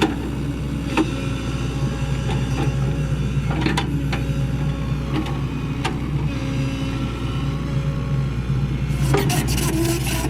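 Sany SY75C excavator's diesel engine running steadily, with a few sharp knocks and, near the end, a burst of scraping and clatter.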